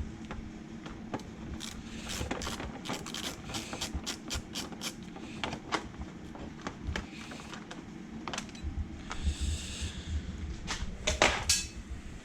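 Irregular clicks and knocks of hand tools and parts being handled on the Audi 2.6 V6 engine, as its timing belt covers are taken off, with a short scrape a little after the middle and a louder knock near the end.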